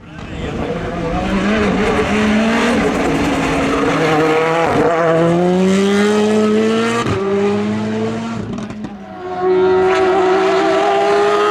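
Hill-climb race car engine accelerating hard at high revs. The pitch climbs and drops sharply at two upshifts, about five and seven seconds in, then the sound dips briefly before the engine comes back loud and steady.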